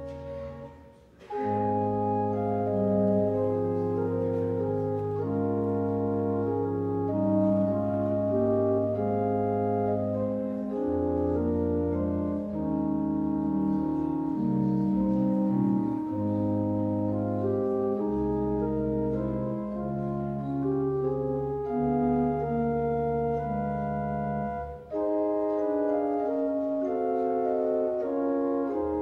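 Church organ playing slow held chords over a sustained bass line, starting after a brief pause about a second in.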